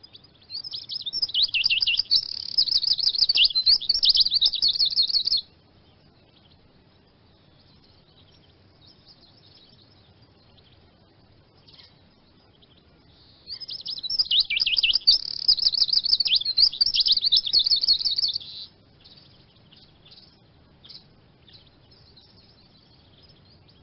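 Eurasian siskin singing: two bouts of rapid, twittering song about five seconds each, the first starting about half a second in and the second about halfway through, with soft scattered calls between them.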